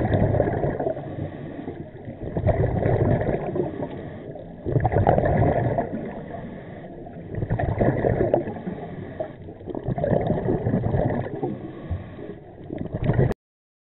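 Scuba regulator exhaust bubbles gurgling underwater, surging in repeated bursts about every two and a half seconds. The sound cuts off suddenly near the end.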